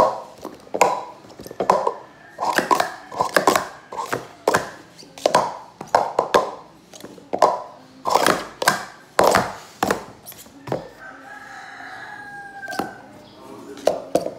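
Plastic sport-stacking cups being stacked up into pyramids and brought back down at speed on a stacking mat: quick runs of sharp plastic clacks and taps in bursts, with a short pause about two-thirds of the way through.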